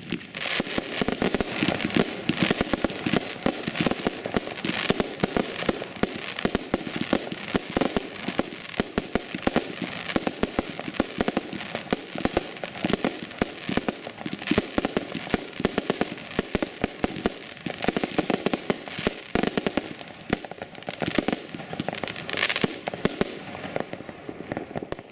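Evolution Crackling Purple 36-shot, 25 mm firework battery firing, heard from about 80 m away: a rapid, unbroken run of launches and bursts, each burst breaking into a dense crackle of crackling stars. It stops just at the end.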